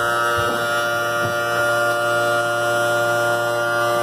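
Sparx skate sharpener's electric motor running steadily: a constant hum with a few faint knocks.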